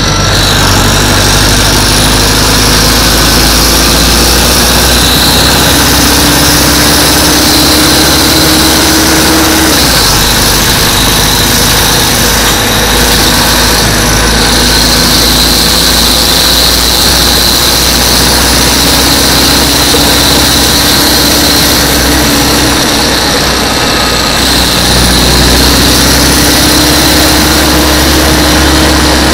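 Detroit Diesel Series 50 diesel engine of a TMC RTS-06 transit bus running under load through its Allison V731 automatic transmission. The engine note climbs steadily three times and drops back after each climb, as in accelerating and shifting.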